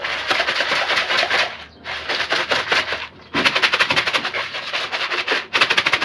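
Pigeon feed mixed with supplements rattling hard inside a plastic container as it is shaken by hand, in four bouts with brief pauses, to coat the feed evenly.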